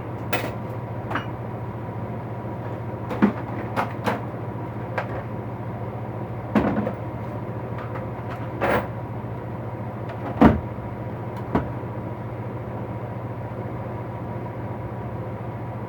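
Tools knocking and clinking as a tool box is rummaged through: about ten short, separate knocks, the loudest about two-thirds of the way through, over a steady low hum.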